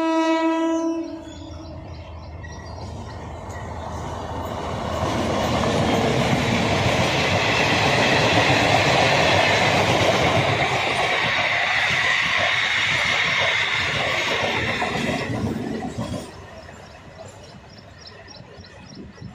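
Indian Railways DEMU (diesel-electric multiple unit) express gives one horn blast, a single steady note lasting about a second. It then runs through the station without stopping: wheel rumble and rail clatter build over several seconds, stay loud for about ten seconds, and drop away suddenly a few seconds before the end.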